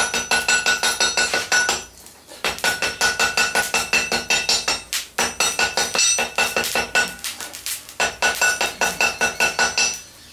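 Hand hammer striking a white-hot billet of bicycle spokes and chain on an anvil to forge weld it solid. Rapid blows come about five a second in four runs with short pauses between, and the anvil rings under each blow.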